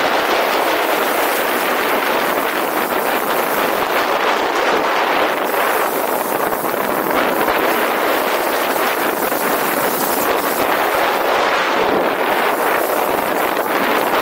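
Skis sliding over snow on a downhill run, with wind on the microphone: a loud, steady hiss that does not let up.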